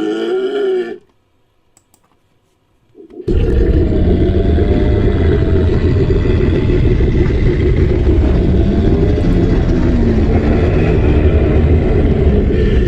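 Styracosaurus creature sound effect: a short pitched call that ends about a second in, then after a brief silence a long, deep, rumbling roar.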